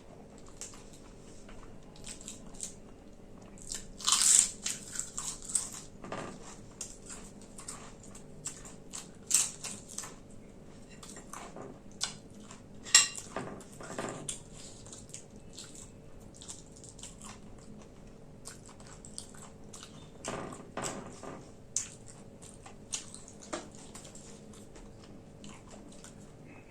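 Crisp papad being bitten and chewed: irregular sharp crunches with quieter chewing between, the loudest cluster about four seconds in.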